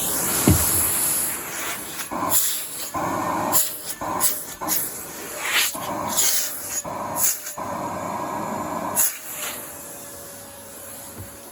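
Numatic Henry HVR200 vacuum cleaner running, its suction noise surging in irregular bursts of rushing air, then settling to a quieter steady motor hum near the end.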